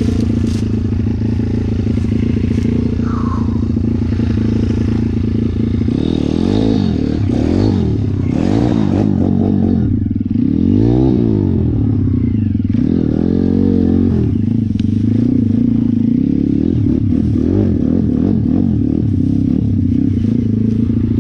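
A 150 cc YX single-cylinder four-stroke dirt bike engine running steadily, then revved up and down over and over from about six seconds in as the bike works through a marsh mud hole with the rear wheel slipping.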